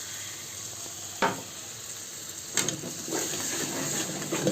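Chicken curry masala sizzling in a hot pan, with a sharp clink about a second in. From about halfway, the sizzle grows louder, with clattering and scraping as the pan is stirred.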